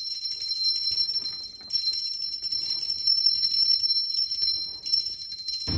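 Small brass puja hand bell (ghanti) rung continuously during an aarti, a steady bright high-pitched ringing.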